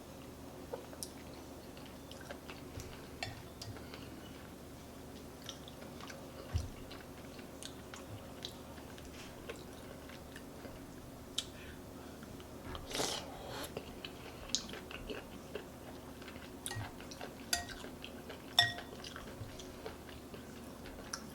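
Close-miked chewing and mouth sounds of someone eating chicken noodle soup. A spoon clinks against the bowl a few times late on, over a steady low hum.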